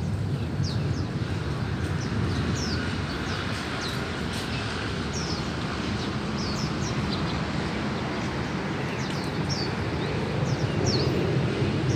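Short, high, sharp chirps of a wild sikatan londo flycatcher, repeated at irregular intervals over a steady low rumble.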